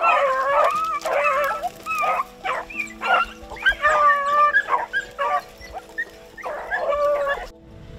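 A pack of beagles baying while running a jumped rabbit's trail: several hounds give long, wavering cries that overlap one another. A low, steady music drone sits underneath, and the baying cuts off suddenly near the end.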